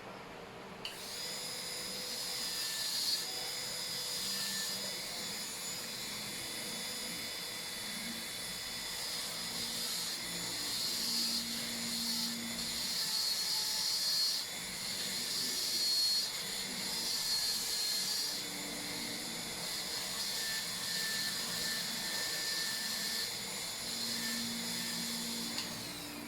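High-speed dental handpiece (air turbine drill) running with a steady high-pitched whine and hiss while cutting a Class II cavity preparation, its pitch wavering slightly. It starts about a second in and its pitch falls away as it spins down near the end.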